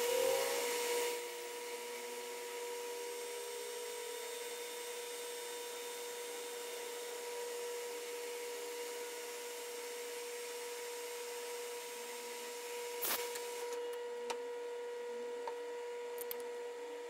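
Metal lathe running, with a steady hum, as a tool turns down a brass part held in a collet. There is a brighter hiss in the first second and a sharp click about 13 seconds in.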